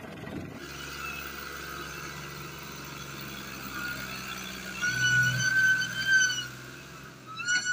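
Tractor's diesel engine pulling hard under a heavy load, running at a steady speed, with a high whining tone that swells about five seconds in and a short high tone near the end.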